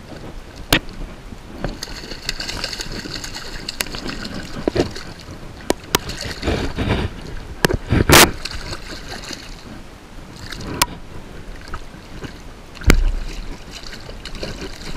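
A hooked sea robin thrashing at the water's surface as it is grabbed by hand: water sloshing and splashing, with several sharp splashes, the loudest about eight seconds in and another near the end.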